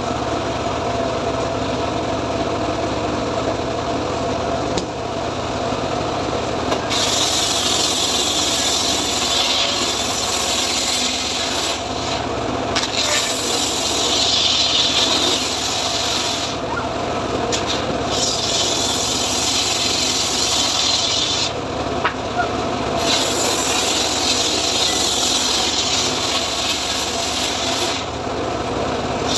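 Homemade engine-driven circular saw bench (gergaji srekel) running steadily. About seven seconds in, its blade starts ripping teak boards: the noise of cutting comes in several passes of a few seconds each, with short breaks between them while the engine keeps running.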